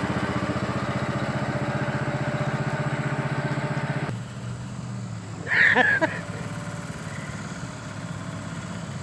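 Riding lawn mower's engine running steadily, then dropping suddenly to a fainter, lower hum about four seconds in. About a second and a half later a brief, loud, high-pitched cry cuts across it.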